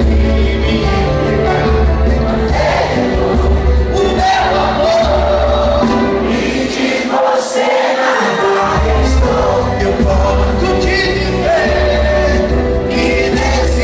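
Live samba band playing with singing, heard loud from among the audience. The bass drops out for about a second and a half near the middle, then comes back in.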